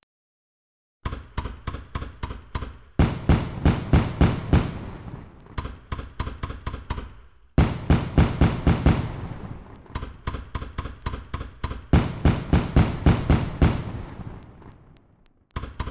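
Fireworks going off in volleys of rapid sharp bangs and crackles, several a second, each volley starting suddenly and dying away. The volleys begin about a second in, with a new one every four seconds or so.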